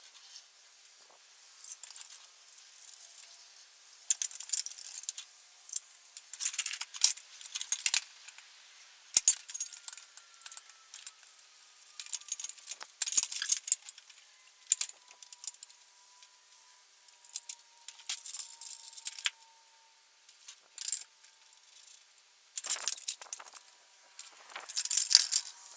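Metal parts and bolts of a manual tire changer clinking and rattling in irregular bursts while it is bolted together by hand.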